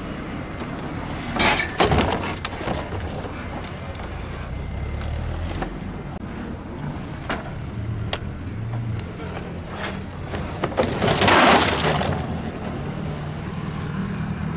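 Car engines running as cars drive slowly past, with two louder rushes of noise: a short one about a second and a half in and a stronger one lasting about a second near eleven seconds in.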